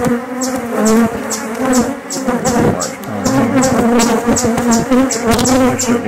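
Honeybees buzzing loudly right at the microphone, several wingbeat tones wavering in pitch as they fly around it. They are defensive bees from an opened hive, attacking the phone.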